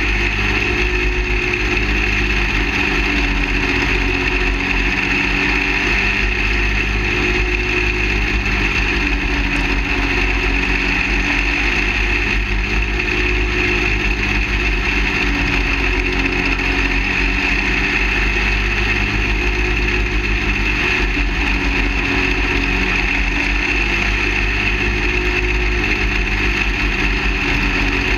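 Half-scale dirt late model race car's small kart engine running hard under race load. Its pitch rises and falls every few seconds as the car goes from the straights into the turns and out again. Wind rushes steadily over the car's roof.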